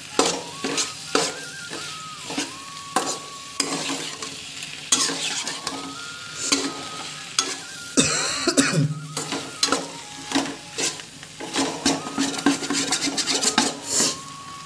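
A metal spatula scraping and clicking against a non-stick frying pan as boiled macaroni is stirred through a tomato-ketchup masala, over a steady sizzle of frying. There are many quick strokes, each one a short scrape or tap against the pan.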